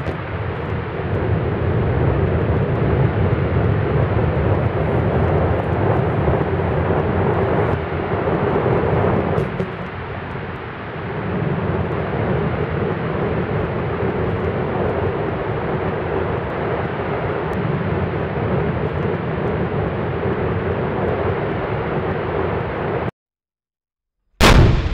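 Demolition explosive charges go off with a sharp crack, followed by a long, loud rumble as two concrete cooling towers collapse. Near the end, after a brief silence, a second sudden blast of demolition charges goes off at the base of a tall tower.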